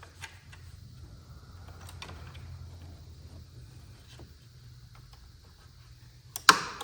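Plastic motorcycle wiring connectors being handled with faint scattered clicks, then a single sharp, loud snap near the end as a connector clips into place.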